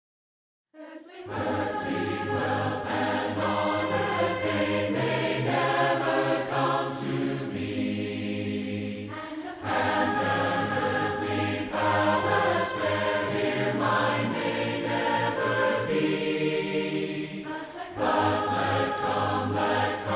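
A choir of mixed voices singing a hymn a cappella, in several parts. It starts after about a second of silence.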